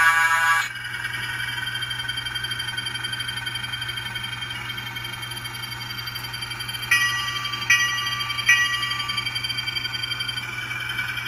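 HO scale model diesel locomotive's onboard sound, heard through its tiny speaker: a steady diesel engine running, with a horn blast that ends just under a second in and three short horn toots about seven to nine seconds in.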